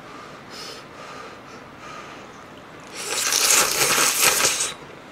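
A person slurping Nagasaki champon noodles and broth from a small bowl: one loud slurp lasting under two seconds, starting about three seconds in, after softer handling sounds.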